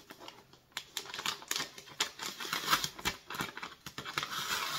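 Brown paper parcel wrapping crackling and clicking as fingernails pick and scratch at it to open it, in quick irregular clicks, with a denser rustle near the end.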